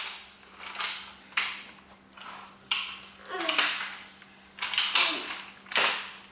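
A toddler's plastic toy roller skates clattering and scraping against the floor in a run of short knocks as the child crawls and pushes up to stand.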